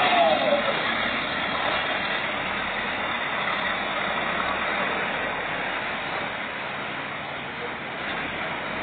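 Farm tractor's diesel engine running under load as its front dozer blade pushes soil: a steady, noisy drone that eases slightly toward the end.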